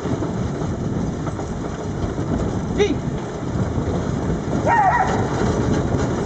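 Steady rumble and patter of a wheeled dog-sled training cart rolling along a road behind a running team of 16 Alaskan huskies. Two brief high dog yips cut through, one about halfway and one about three-quarters through.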